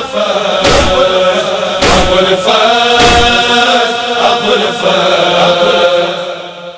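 A chorus of male voices holds a drawn-out wordless noha chant, over heavy thumps of matam chest-beating about once a second. The thumps stop about three seconds in, and the chant fades out near the end.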